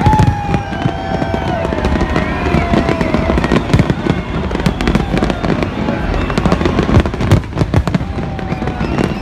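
Fireworks display: many aerial shells bursting in rapid succession, a dense run of bangs and crackling.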